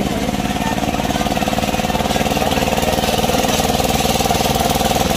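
An engine running steadily at an even, fast beat.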